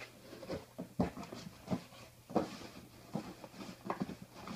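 Cardboard shipping box being handled and dug into: a string of short knocks and rustles of the flaps and contents, irregularly spaced.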